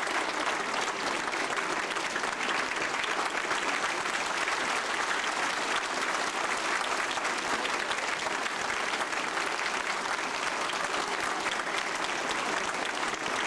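Audience applauding steadily, a dense patter of many hands clapping that holds at a level pitch throughout.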